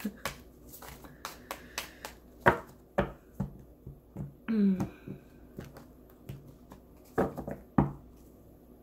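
Tarot cards being handled and tapped on a tabletop: scattered soft clicks and light knocks, sharpest about two and a half seconds in and twice near the end. A woman gives a short hum about halfway through.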